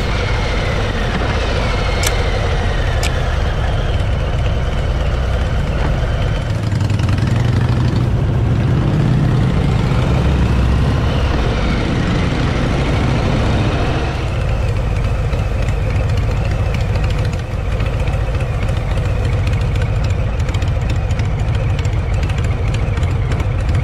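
Harley-Davidson V-twin motorcycle engine running on the move, its note rising and falling with the throttle, over steady wind and road noise, with brief dips in level around the middle as the throttle eases off.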